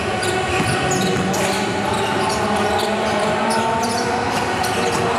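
Basketball bouncing on an indoor court: a run of short sharp knocks over steady hall noise, with echo.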